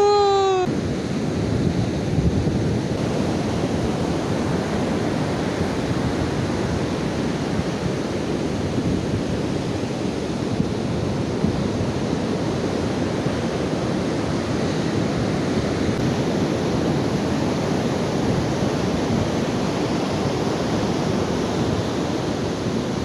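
Strong wind and breaking surf on a beach make a steady, even rushing noise, with the gusts buffeting the microphone.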